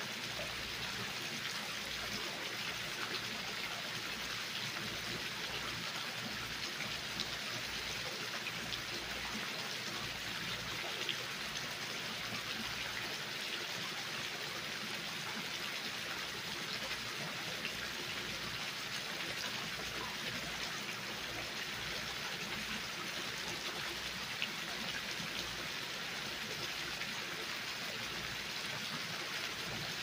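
Water spilling from a stone wall fountain into a shallow pebble-lined pool: a steady, even splashing.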